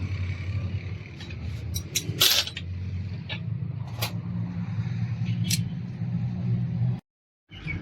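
A motor vehicle engine running steadily at idle, with a series of sharp metallic clinks and taps of small parts and tools.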